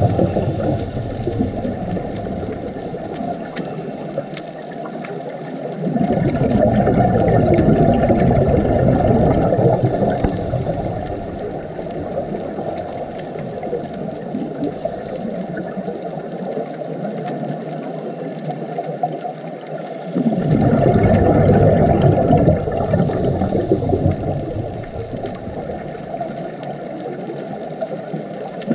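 Scuba diver's exhaled bubbles rushing and gurgling past an underwater camera, in surges a few seconds long about every fourteen seconds, with quieter water noise between breaths.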